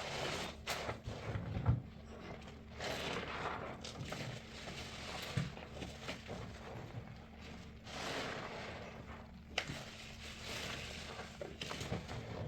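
A soapy sponge loaded with paste being squeezed and released, giving wet squelching and crackling in swells every couple of seconds, with sharp little pops among them.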